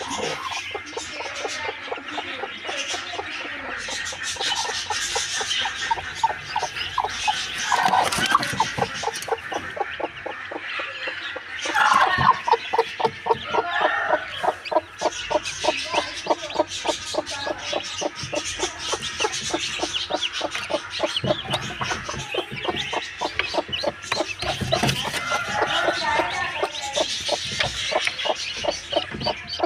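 Domestic chickens clucking in quick, evenly repeated pulses, several a second, with high peeping from newly hatched chicks over it.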